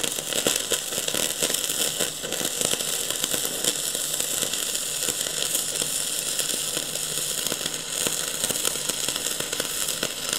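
Gasless flux-core MIG welding arc burning on steel plate, a steady, dense crackling with many small pops. The wire is on electrode-positive polarity, the wrong setting for flux core, which makes the arc spit and throw heavy spatter.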